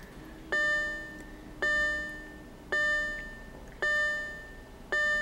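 2008 Audi A4's dashboard warning chime dinging repeatedly, about once a second. Each ding strikes sharply and fades away, with the key just turned in the ignition.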